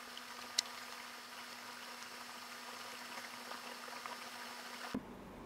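Faint steady hiss with a low, steady hum underneath: the recording's background noise. There is one faint click about half a second in, and the hiss cuts off abruptly near the end.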